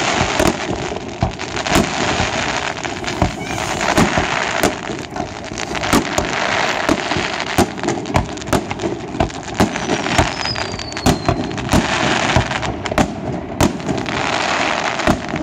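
Fireworks display: shells bursting in a rapid, irregular series of sharp bangs, with dense crackling between them. A short falling whistle sounds about ten seconds in.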